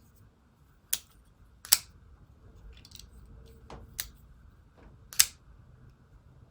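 Sitivien ST242 liner-lock folding knife being handled, its blade working and locking with about six sharp separate clicks, the loudest near the end.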